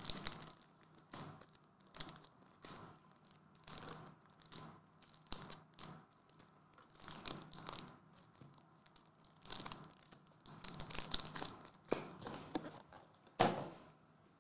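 Foil trading-card booster packs crinkling and rustling in scattered bursts as they are handled and spread out on a playmat, with one sharp knock near the end.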